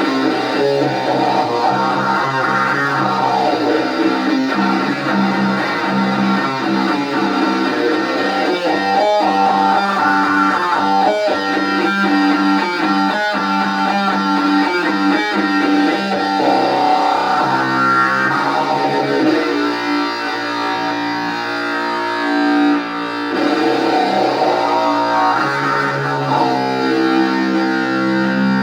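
Distorted electric guitar playing slow, heavy doom riffs through an Orange amp, with long sustained chords and a stretch of quicker picked notes in the middle. A sweeping effect moves the tone up and down every several seconds.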